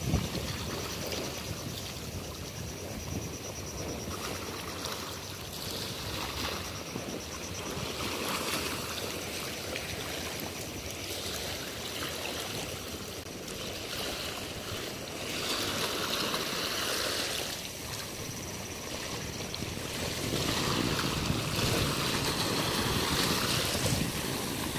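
Small sea waves washing over a shallow shore and a low seawall: a steady wash of surf that swells louder twice in the second half.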